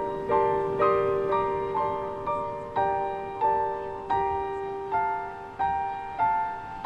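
Calm, slow piano music: single notes and soft chords struck about once or twice a second, each fading away before the next.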